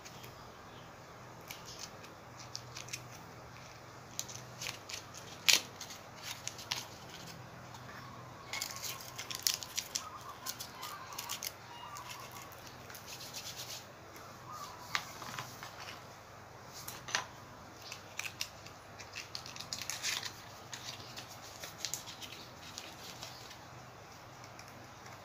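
Pleated paper cupcake liners being pulled apart and handled, giving scattered crinkles and sharp ticks that come thickest around ten seconds and twenty seconds in.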